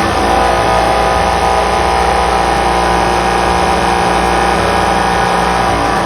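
Swimsuit spin dryer running: its motor spins wet swimwear to throw the water out, a steady loud whine over a low hum. It starts abruptly and stops near the end.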